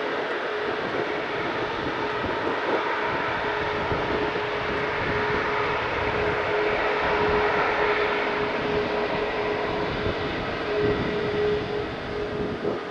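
Jet engines of an Airbus A340-500: its four Rolls-Royce Trent 500 turbofans. They make a steady, continuous rush with one constant tone through it, holding level.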